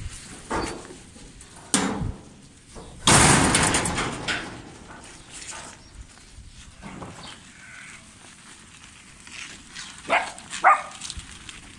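Farmyard sounds around a flock of sheep and a young herding dog. A sharp click comes about two seconds in, then a loud rushing noise lasting about a second and a half, and two short animal calls close together near the end.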